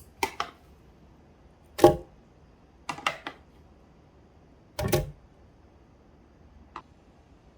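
A handful of sharp knocks and clacks, hard objects handled or set down, the loudest about two seconds in, with two more about three and five seconds in and a faint tap near the end.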